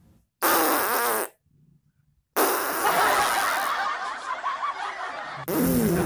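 Fart sound effects: a short, loud one lasting under a second about half a second in, then a long one running on from about two and a half seconds in.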